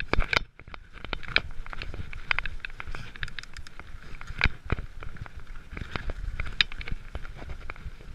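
Giant mountain bike rolling down a loose gravel trail: tyres crunching over stones, with a constant run of sharp clicks and rattles from the bike and the gravel over a low rumble.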